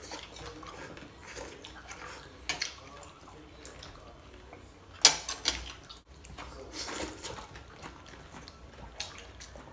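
Kitchen handling sounds: running water and kitchenware clinking, with a sharp knock about five seconds in.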